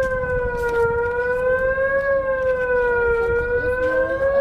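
Emergency alert siren tone, one steady pitched sound that slowly rises and falls in pitch about once every two seconds.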